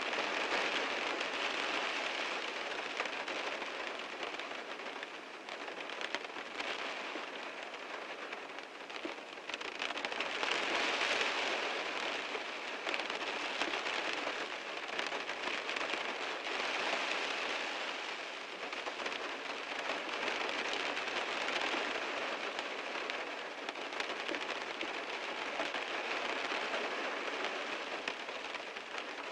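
Heavy rain drumming on a car's roof and windows, a dense steady patter that swells and eases every few seconds.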